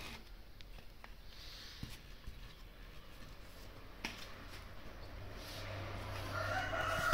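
Light clicks of fingers handling the knobs of a small Bluetooth amplifier board, over a low steady hum. Near the end a drawn-out animal call with several pitches comes in.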